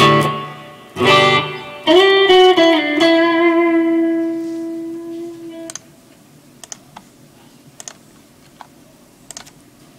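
Electric guitar played through a Fender Mustang I amp and heard from the amp's own output: two strummed chords, then a chord left ringing that fades out about six seconds in. After it, a few faint clicks.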